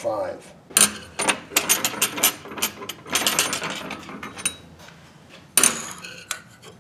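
Steel pushrods and a dial caliper being handled on a metal workbench: a quick run of sharp metallic clicks and taps for several seconds, then one louder clatter about five and a half seconds in.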